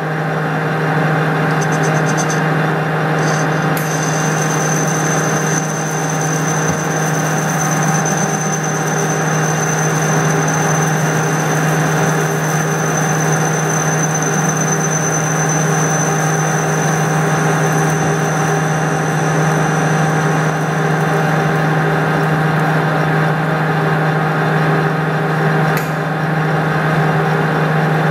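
Metal lathe running with a steady hum while a turn, face and chamfer bit cuts an aluminium blank. A thin high whine comes in about four seconds in and fades out around twenty seconds.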